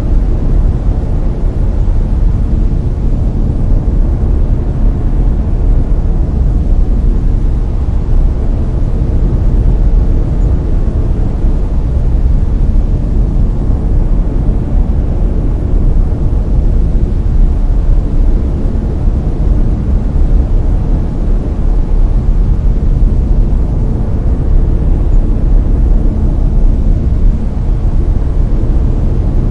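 Steady layered brown noise: a deep, even rushing hiss, strongest in the bass and thinning toward the treble, with no change in level.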